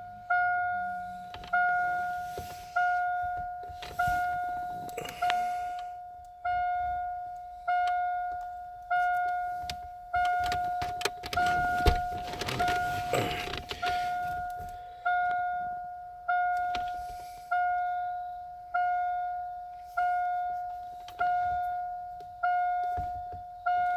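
A car's electronic warning chime dinging steadily, one decaying ding about every 1.2 seconds. Around the middle, a few seconds of clattering noise sound over it.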